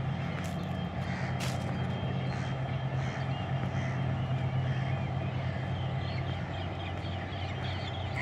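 Steady, even-pitched drone of an idling engine, with faint short high chirps over it.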